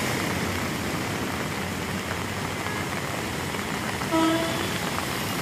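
Steady hiss of heavy rain and traffic driving through a flooded road, with a short vehicle horn honk about four seconds in.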